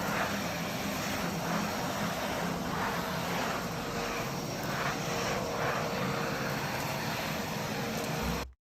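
Kärcher WD 2.200 wet-and-dry vacuum cleaner running, a steady rush of air over a faint motor hum, the airflow rising and falling a little in the middle. It cuts off abruptly just before the end.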